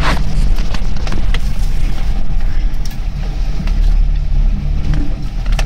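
A small Suzuki 4x4's engine running at low revs, heard from inside the cab as it crawls over a rutted mud track. Scattered knocks and rattles come from the body and suspension jolting over the ruts.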